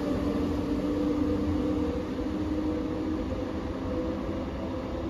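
Frecciarossa high-speed electric train moving away along the platform track: a steady rumble with a humming electric tone that fades as it goes, the lower part of the hum dying out about three seconds in.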